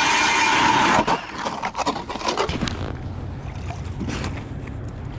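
StrikeMaster Lithium 40V electric ice auger drilling through pond ice, a loud steady motor whine that cuts off suddenly about a second in. Then scattered knocks and footsteps on the ice.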